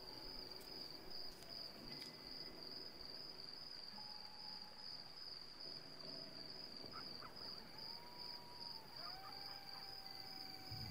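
Crickets chirping steadily in a faint night ambience. Soft drawn-out tones enter and bend in pitch near the end.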